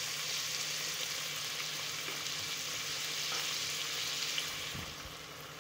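Chopped vegetables (onion, tomato, carrot and beans) frying in oil in a rice cooker's nonstick inner pot: a steady sizzle that eases off a little near the end.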